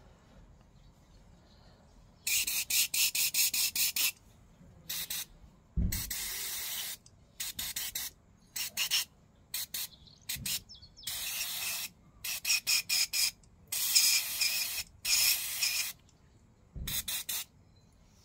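Aerosol mass airflow sensor cleaner spraying onto a sensor to wash off dust and build-up. It comes in a string of hissing bursts: a quick run of short pulses about two seconds in, then longer blasts of a second or more, stopping shortly before the end.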